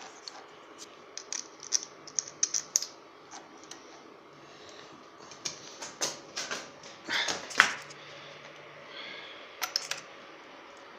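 Small metal parts of a lathe's belt variator being handled and fitted together: irregular light clicks and knocks in two flurries, the sharpest knock a little past the middle.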